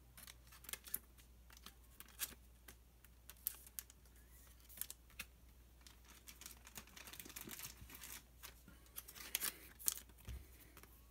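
Faint, scattered crinkling and soft clicks of Pokémon trading cards and a foil booster-pack wrapper being handled as a pack's cards are flipped through.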